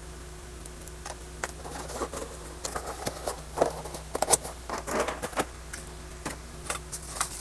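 Cardboard box flaps and plastic packaging bags being handled, giving irregular rustling, crinkling and light taps that are busiest in the middle. A faint steady hum runs underneath.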